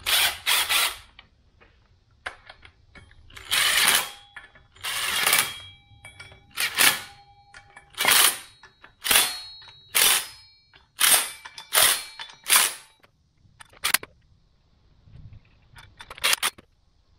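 Cordless impact driver spinning flywheel bolts into the crankshaft in about a dozen short bursts, each under a second, with pauses between; the bolts are being run down snug before they are torqued by hand.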